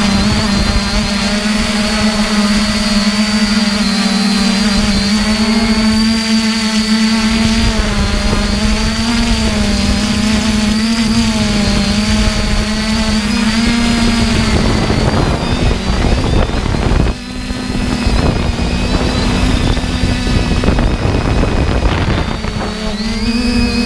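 Multirotor drone's electric motors and propellers whining in flight: a steady hum that wavers slightly in pitch as the throttle is adjusted. Rough rushing noise builds in the second half, the sound dips briefly about 17 s in, and the pitch steps up near the end.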